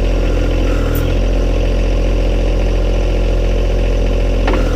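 John Deere 1025R compact tractor's three-cylinder diesel engine running steadily under hydraulic load as the 260B backhoe boom is worked at full speed. The engine note shifts briefly about a second in and again near the end.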